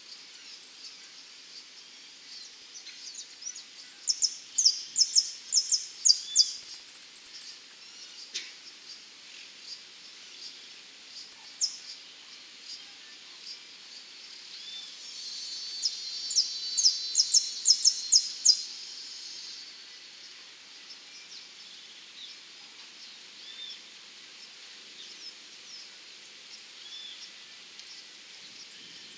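Saffron finch (dorado) singing: two bursts of song, each a rapid run of high notes, about four seconds in and again about fifteen seconds in, with short single chirps between them.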